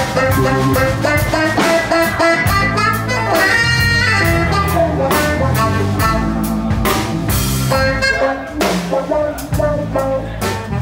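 Live band playing, with a saxophone taking the melodic lead over a drum kit and electric guitars; cymbals and drum hits keep a steady beat.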